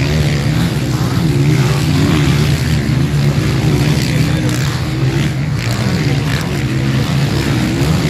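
Several motocross bikes' engines revving hard, the pitch rising and falling again and again as the riders work the throttle over a jump.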